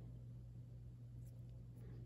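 Near silence: a steady low hum, with a couple of faint light ticks from handling the barrel about a second in and near the end.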